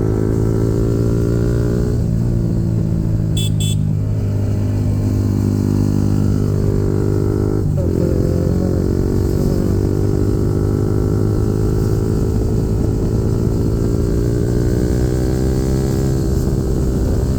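Yamaha MT-15's single-cylinder engine running at a steady speed through a full-system Akrapovic replica aftermarket exhaust, with a brief dip in the note about eight seconds in.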